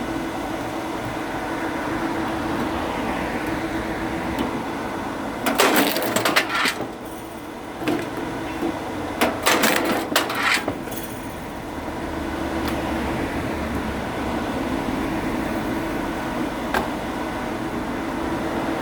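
Oak firewood splitting: two bursts of cracking and splintering wood, about six and ten seconds in, over a steady mechanical hum.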